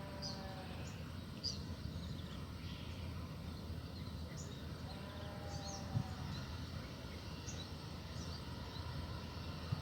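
Outdoor ambience: a steady low rumble with short, high bird chirps scattered throughout.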